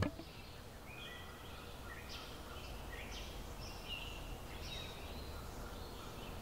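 Birds chirping, short high calls repeating every half second or so, over a faint steady background hum.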